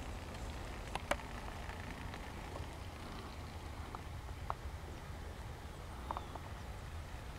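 Quiet outdoor field ambience: a steady low rumble with a few scattered short chirps or clicks, about one a second or less.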